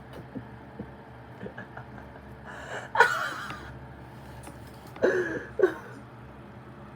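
Two short breathy vocal outbursts from a person, about three and five seconds in, over a ceiling fan's steady hum with a few faint ticks.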